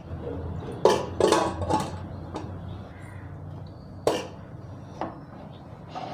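Metal pressure cooker lid clanking against the pot as it is fitted and closed: a quick cluster of knocks about a second in, then single clanks near four and five seconds.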